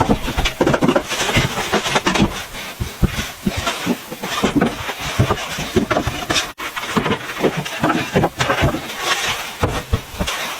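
A dense, irregular series of close knocks and scrapes of hands-on work, broken by a brief cut about two-thirds of the way through.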